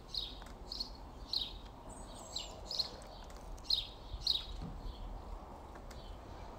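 A fork pricking puff pastry on a metal baking tray: a short, light, high tick each time the tines go through to the tray, about every half second, dying away after four or five seconds.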